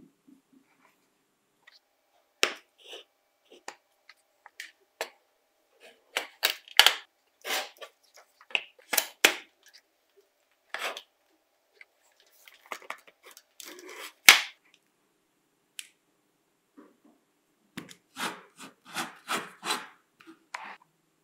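Hard plastic tool parts and a cordless-drill battery pack handled on a wooden workbench: scattered clicks, taps and knocks, with one sharp knock about fourteen seconds in and a quick run of taps near the end.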